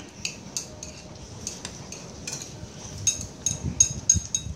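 Metal spoons clinking against ceramic bowls and plates as people eat. The clinks are scattered at first and come thick and fast from about three seconds in.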